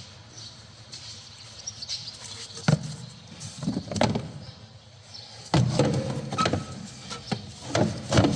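Plastic air intake pipe and airbox parts being handled and fitted into place: scattered knocks and clicks, with a sharp click a little under three seconds in and a busier stretch of knocking and rubbing from about halfway on.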